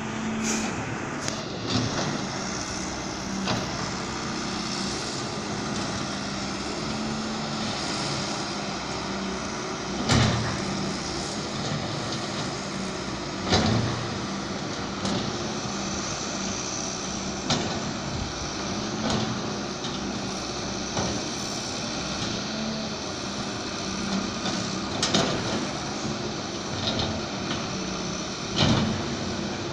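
Wheeled hydraulic excavator's diesel engine running steadily while it digs, with sharp knocks every few seconds, loudest about ten and fourteen seconds in.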